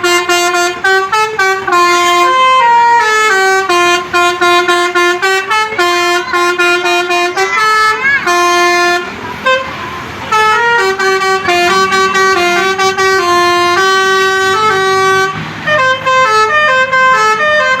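Indonesian bus 'telolet' Basuri musical air horn playing a melody: loud held notes stepping up and down one after another, with short breaks about halfway and again near the end.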